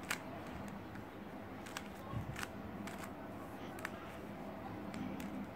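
GAN Monster Go magnetic 3x3 speed cube being turned one-handed: irregular plastic clicks of the layers snapping into place, about two a second, over a faint steady background hum.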